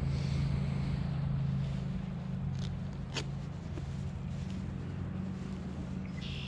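A steady low mechanical hum, with a single faint click about three seconds in.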